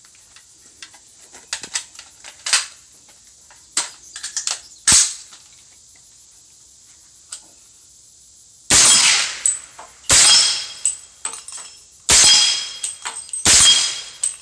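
A few metallic clicks of the rifle being handled and loaded, then four suppressed shots about one and a half to two seconds apart. The shots come from a 300 Blackout short-barreled rifle with a home-built 9-inch titanium Form 1 suppressor, firing 220-grain Remington subsonic rounds.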